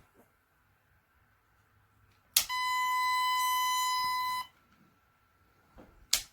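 KIMO 20V cordless oscillating multi-tool switched on with a click, running unloaded for about two seconds with a steady high whine, then switched off and winding down. Another click comes near the end.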